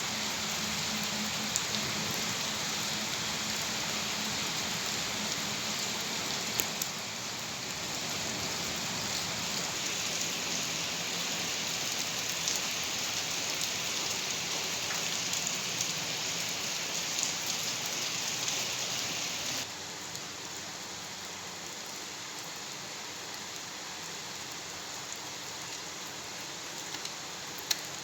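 Steady rain falling, with scattered louder drop ticks through the steady hiss. The level steps down a little about two-thirds of the way through.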